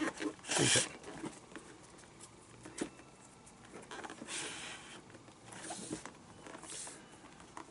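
Lace being pulled through the lacing holes in the fingertips of a leather baseball glove: short, hissy swishes of lace rubbing through leather, the loudest about half a second in and several more in the second half, with quieter rustling and handling of the glove between.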